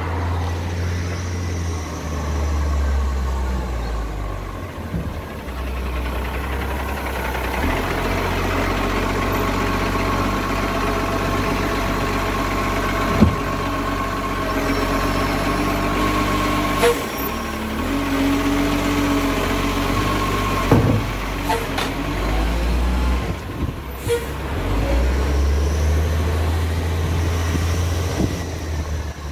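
Side-loader garbage truck's diesel engine running as it pulls up to a kerbside bin, then chugging while the hydraulic arm lifts and tips the bin, with a steady whine through the lift and several sharp knocks as the bin is handled.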